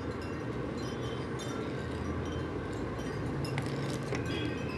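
Steady background room noise with a few faint, scattered clinks and taps.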